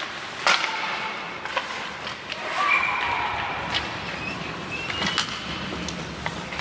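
Ice hockey in play: sharp clacks of sticks and puck, the loudest about half a second in, over the steady scrape of skates on the ice, with a few shouts from players between about two and a half and five and a half seconds in.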